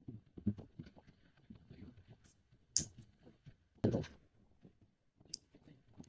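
Scissors snipping and scraping at the wrapping of a small cardboard tablet box: a few sharp snips, with soft rustling and clicking between them and one louder dull knock about four seconds in.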